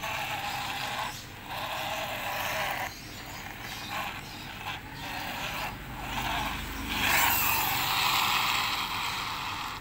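A toy car's mechanism whirring in repeated spurts of about a second each, with short breaks between. The last spurt is the longest and loudest.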